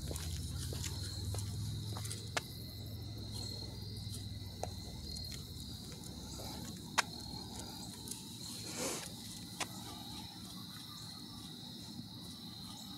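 Crickets chirping in a steady high-pitched chorus, with a few sharp clicks, the loudest about seven seconds in.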